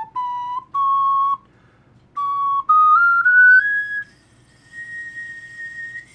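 3D-printed soprano ocarina playing single held notes that climb step by step up the scale, with a short pause about two seconds in. The last and highest note, held for over a second near the end, comes out much weaker and airy: the small printed ocarina cannot sound its high notes well.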